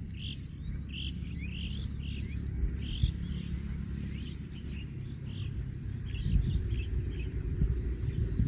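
Small birds chirping over and over, about two short chirps a second, thinning out after about five seconds. Under them runs a steady low rumble.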